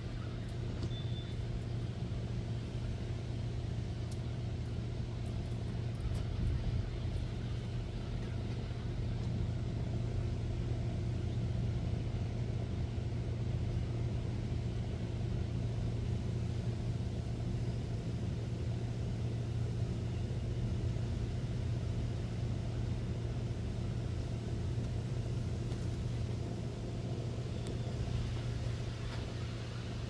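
Steady low mechanical hum and rumble, even throughout, with a faint short high peep about a second in.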